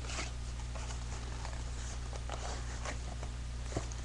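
Cardboard packaging insert being handled and pulled from a box: scattered light scrapes and taps, with one sharper tick near the end, over a steady low electrical hum.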